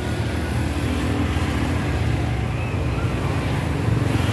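Motor vehicle engine running close by, with a steady low hum that grows louder near the end as the vehicle passes.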